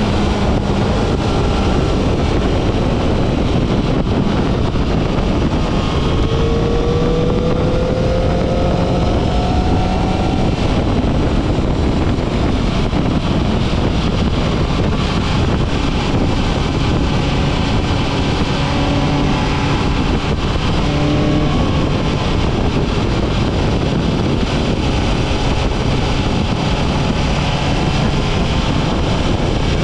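Heavy wind rush over a camera mounted on a fast-moving road vehicle, with an engine note rising in pitch under acceleration, twice.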